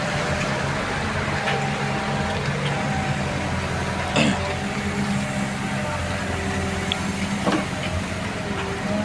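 A heavy diesel engine running steadily at an even speed, with a sharp metallic knock about four seconds in and a smaller one near the end.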